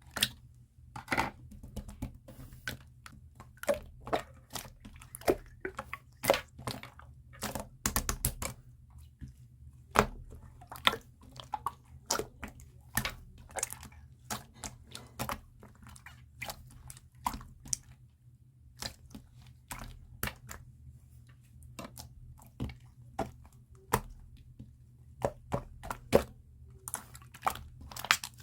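Clear slime being squeezed and poked by hand, making irregular sharp clicks and pops, several a second at times, with short pauses between.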